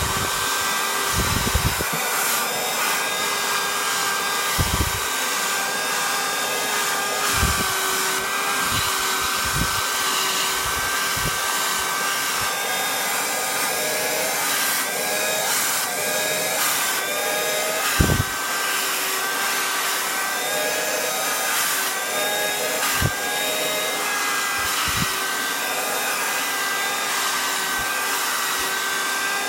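Cordless handheld vacuum cleaner running steadily with a high motor whine, its pitch dipping slightly now and then as the attachment works over a fabric chair to pull out cat hair. A few short thumps of the nozzle knocking on the chair.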